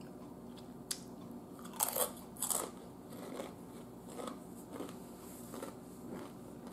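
Ruffles ridged potato chip crunched between the teeth: two loud crunching bites about two seconds in, then softer chewing crunches about every half second.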